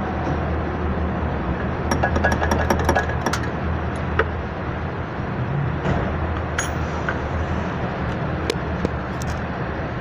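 Car engine idling steadily, with a quick run of sharp metallic clicks about two seconds in and a few single clinks later: an open-end wrench knocking on the clutch master cylinder's brake-line fitting while the system is bled of air.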